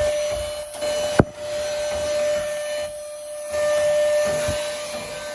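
Vacuum cleaner running with a steady whine over rushing air, cleaning dust out of the inside of an opened clothes dryer; a sharp knock about a second in, and the air rush dips briefly about three seconds in.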